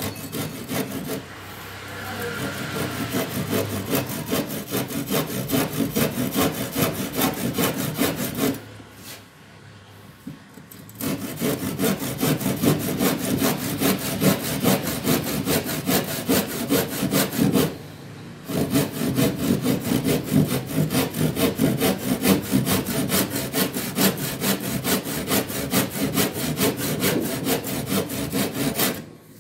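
Hasston Prohex 16-inch hand saw cutting through a piece of wood with quick back-and-forth strokes. The sawing comes in three runs, with a short pause about a third of the way in and a brief one a little past halfway.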